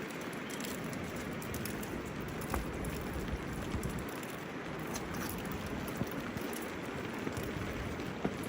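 Steady rain falling, with scattered sharper drops and drips landing close by.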